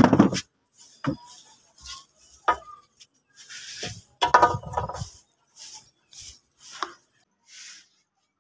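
Scattered light knocks, scrapes and rustles, about a dozen short ones, the busiest cluster about four to five seconds in: someone moving about and handling things.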